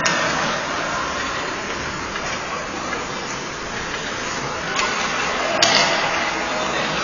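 Ice rink ambience during hockey practice: a steady echoing wash of skates scraping the ice and distant voices, with two sharp clacks, one at the start and one about five and a half seconds in.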